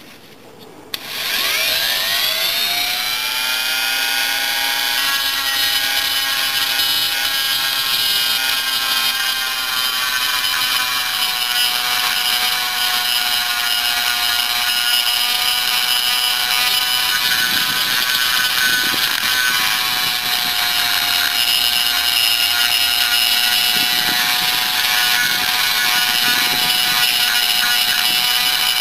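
High-speed rotary tool spinning up about a second in with a rising whine, then running at a steady high whine as its 1/8-inch single-cut burr grinds and blends the aluminium transfer ports of a Yamaha Blaster two-stroke cylinder.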